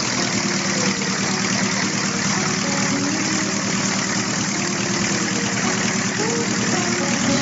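Wallis autogyro's piston engine, just started by hand-swinging the propeller, running steadily at idle with the pusher propeller spinning.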